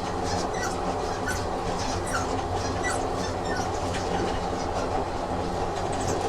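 Train running on rails: a steady low rumble and motor hum, with irregular clicks from the track and a few brief high squeaks from the wheels.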